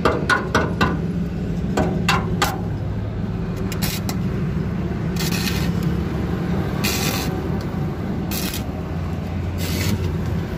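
Workshop noise: a steady low hum throughout, a quick run of sharp metallic knocks in the first couple of seconds, then four short hissing bursts in the second half.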